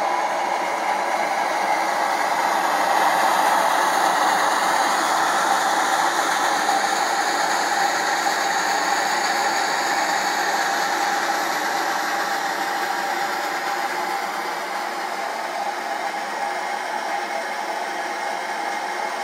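Pressurized liquid-fuel stove burning at full flame inside a stainless steel chimney tube: a steady rushing hiss that eases slightly in loudness over the second half.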